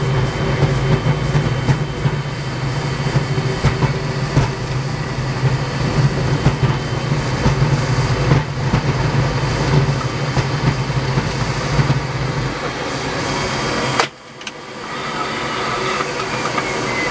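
Towplane engine droning steadily, heard inside a glider's cockpit over the rush of air during an aerotow. About fourteen seconds in, a sharp click of the tow release; the engine drone drops away at once, leaving the airflow hiss, which builds again as the glider flies free.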